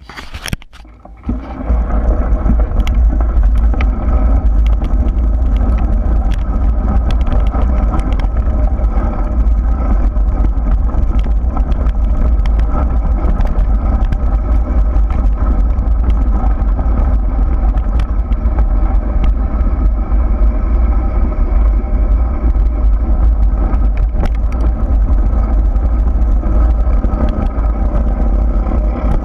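Wind buffeting the microphone during a fast descent on a dirt track, over rough rolling noise and a steady hum, with scattered clicks. It builds up over the first second and a half and then stays steady.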